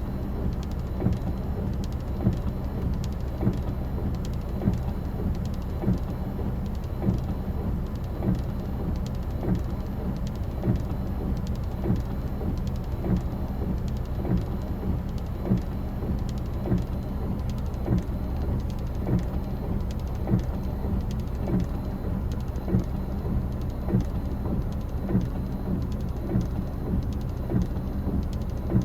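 Strong typhoon wind buffeting the microphone: a steady low rumble broken by frequent short thumps as gusts hit.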